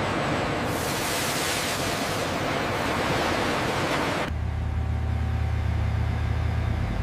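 A loud, steady hiss that stops abruptly about four seconds in and gives way to the low, steady rumble of tank engines as the tanks drive.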